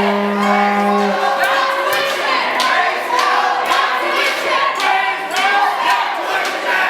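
A protest crowd making noise together: many voices singing and shouting over a run of rhythmic sharp hits, with one steady held tone that stops about a second in.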